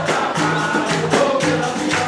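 Capoeira roda music: voices singing a chant over the even, repeating notes of a berimbau and the jingling beat of a pandeiro.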